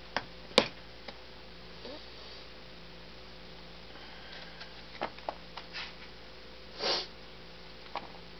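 A long-handled metal spoon stirring and breaking up the fruit cap of fermenting melomel in a plastic bucket: scattered sharp clicks and knocks of the spoon against the bucket, and a short whoosh near the end, over a steady electrical hum.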